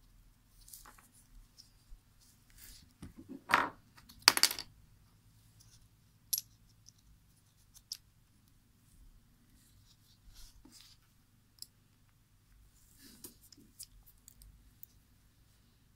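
Gloved hands handling small parts of a disassembled webcam: scattered light clicks and rustles, with two louder scraping rustles about three and a half and four and a half seconds in.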